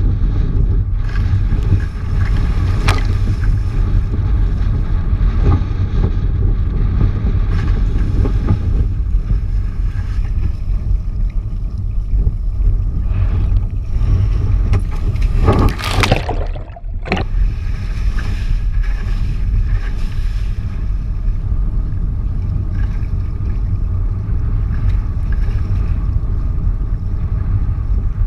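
Heavy wind rumble on an action camera's microphone, mixed with rushing water, as a wingfoil board flies on its foil. About sixteen seconds in, a short louder rush ends in a brief drop in level.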